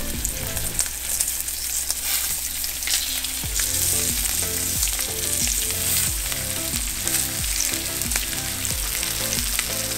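Floured pompano, glass nose and whiting fillets frying in hot oil in a steel pan: a steady sizzle as more fillets are laid in.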